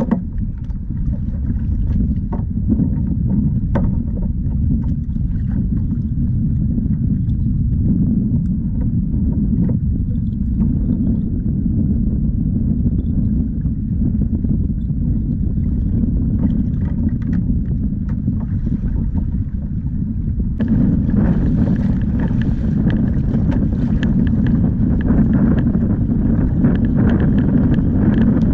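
Wind buffeting the microphone in a steady low rumble, with light water noise around a kayak's hull. About two-thirds of the way through, a louder hiss of rushing water and spray joins as the kayak moves fast through the chop.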